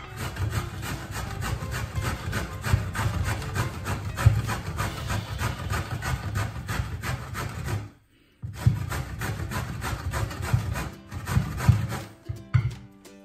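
Peeled raw cassava root grated on a stainless-steel box grater: rapid, repeated rasping strokes, with a brief pause about eight seconds in.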